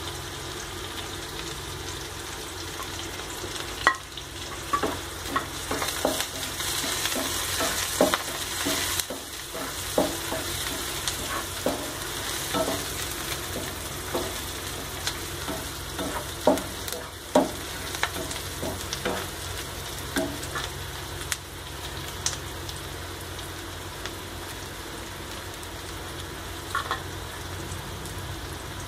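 Chopped shallots and curry leaves frying in oil in a nonstick pan: a steady sizzle with the clacks and scrapes of a plastic spatula stirring them. The stirring strokes come thickest in the first two-thirds, then mostly just the sizzle remains.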